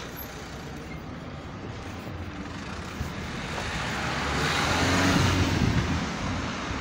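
A small van drives past close by, its engine and tyre noise swelling to a peak about five seconds in and then fading.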